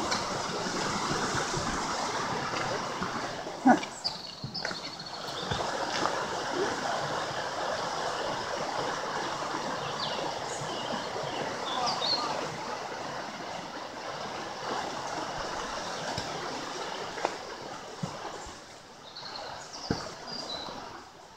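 Mountain river water rushing steadily, fading over the last few seconds. A few short high chirps break through it, and there is one sharp knock a few seconds in.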